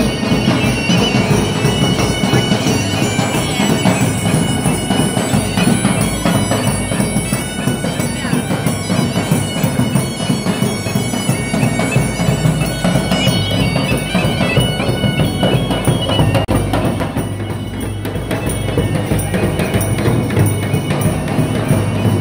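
Folk music led by bagpipes over steady drone tones, with drums beneath.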